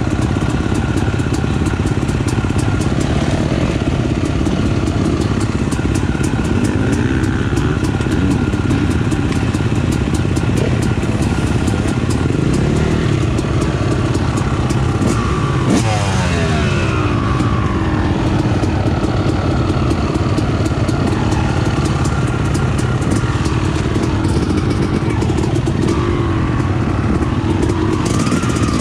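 Yamaha YZ250 two-stroke motocross bike engine running close by, mixed with other dirt bike engines running nearby. About halfway through, one engine's pitch falls steeply.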